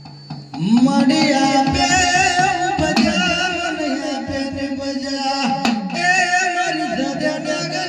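Live Gujarati dakla devotional folk music through a PA system, with a singing voice over drums, starting loud about half a second in.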